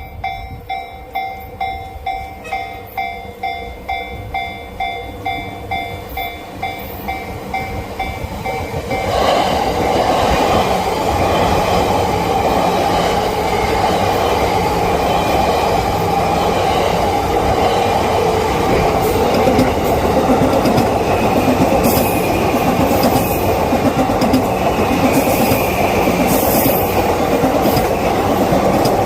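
Japanese level crossing warning bell ringing about twice a second. About nine seconds in, a commuter electric train arrives and runs through the crossing, its wheels clattering over the rails until the end.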